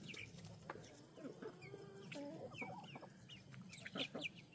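Chickens clucking softly, with scattered short high-pitched chirps and a few sharp clicks.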